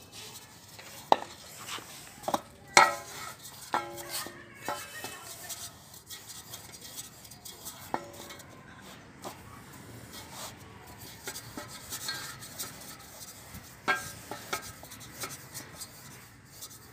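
Wooden rolling pin rolling out dough in a stainless-steel bowl: soft rubbing of the pin over the floury dough, broken by sharp clinks and knocks of the pin and hands against the steel, the loudest about three seconds in.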